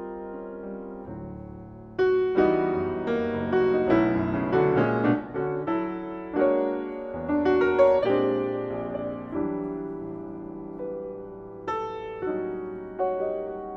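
Solo jazz piano on a Yamaha grand. A held chord dies away, then from about two seconds in a flowing run of struck chords and single notes follows. A chord is left to ring for a couple of seconds before a few more chords are struck near the end.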